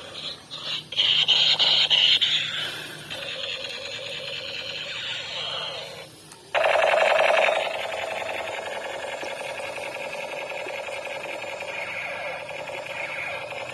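Battery-powered toy gun playing its electronic rapid-fire sound effect, a fast buzzing rattle of shots. It breaks off about six seconds in and starts again at once.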